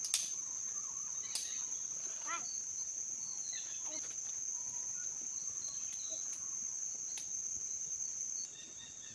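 Insects trilling in one steady, high-pitched note that drops in level near the end, with a few faint calls and scattered sharp clicks over it.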